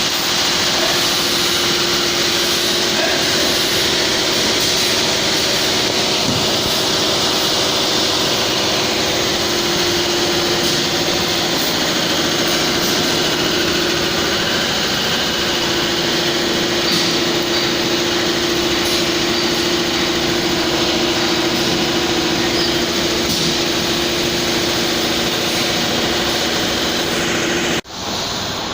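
A roller-blind fabric welding machine running: a steady mechanical hiss with a low hum. It cuts off abruptly near the end.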